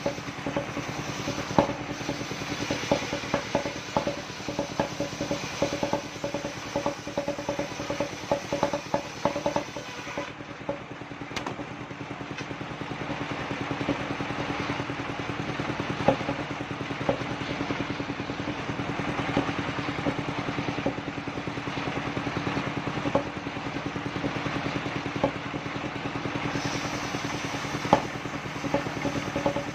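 Engine-driven mobile circular sawmill running steadily, with frequent knocks and clatter of sengon wood on the rig.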